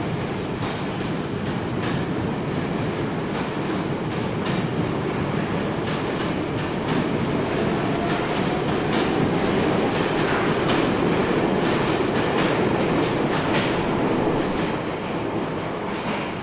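Subway train running on the rails, a steady rumble with repeated clicks of the wheels over rail joints and a faint rising whine about halfway. It grows louder through the middle and starts to fade near the end.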